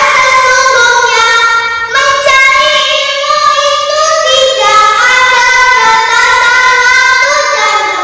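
A young girl singing solo, drawing out long held notes in a wavering melody.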